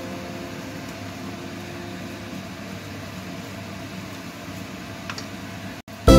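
Steady hiss from the stovetop as eggs cook and are stirred in a nonstick frying pan, with a faint click of the spatula about five seconds in. Music cuts in suddenly at the very end.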